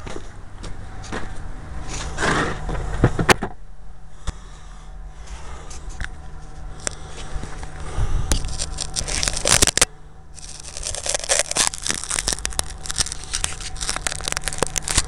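Handling noise from a small camera being carried and jostled: scraping, crackling rubs and clicks against the microphone, coming in bouts with a short lull about ten seconds in, over a faint steady low hum.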